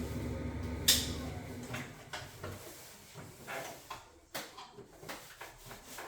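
A steady hum that cuts out just after a sharp click about a second in, followed by a string of light knocks and rattles as a boiler's casing and panels are handled.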